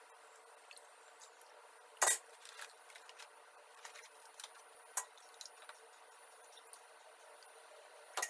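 Metal ladle clinking against the metal milk bowl and tray: a few sharp clinks, the loudest about two seconds in, another near five seconds and one near the end, with light taps between.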